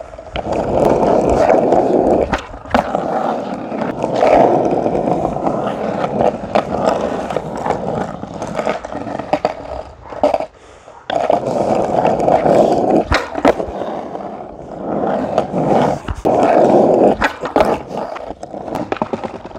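Skateboard wheels rolling on an asphalt alley in several long runs, broken by sharp clacks of the board striking the ground. The rolling stops briefly about halfway through.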